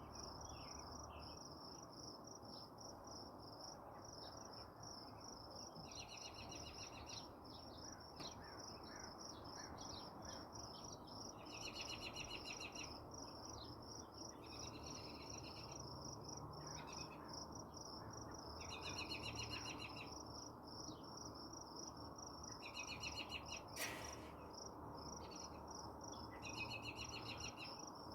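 Faint steady chorus of insects trilling high, with short trills breaking in every few seconds and one sharp click about three-quarters of the way through.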